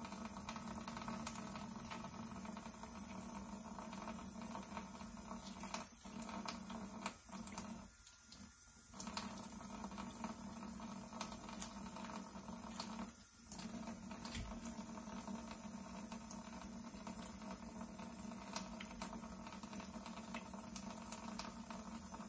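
Faint wet squishing and small clicking sounds of raw pork chitterlings being handled as their membrane is pulled off by hand, over a low steady hum.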